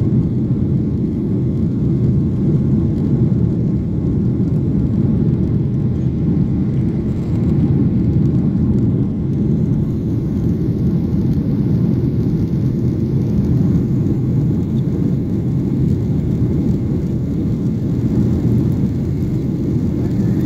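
Steady low drone of a jet airliner in flight, heard inside the cabin: engine and airflow noise.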